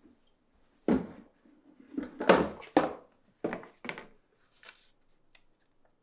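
A gift box set down on a wooden table with a thump about a second in, then knocks and paper rustling as the lid is taken off and the box handled open, ending in a brief crisp rustle of paper as a note is lifted out.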